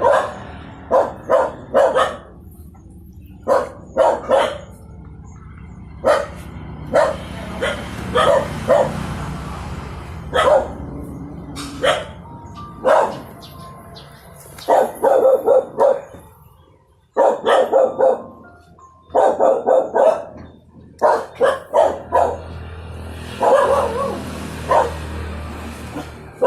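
Dog barking repeatedly in clusters of short barks separated by brief pauses, over a steady low hum.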